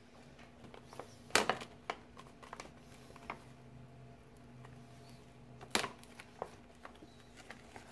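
A small taped gift bag being handled and the tape picked and pulled open: scattered soft rustles and clicks, with two sharper crackles about a second and a half in and near six seconds, over a faint steady hum.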